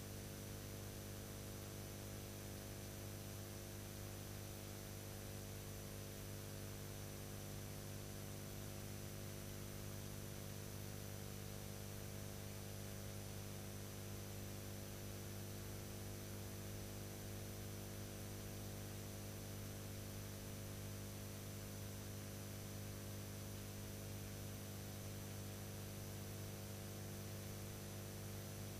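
Steady electrical mains hum with a stack of overtones over constant hiss, unchanging throughout. It is the blank sound track of a silent film transfer.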